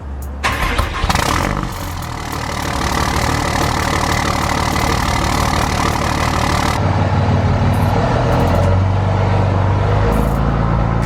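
Truck engine running, starting suddenly and loud with a rushing noise over the first several seconds, then settling to a steadier low hum.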